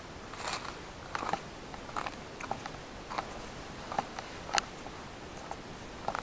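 Footsteps crunching on dry ground: irregular sharp crunches and clicks, about one or two a second, with the loudest a little after the four-second mark.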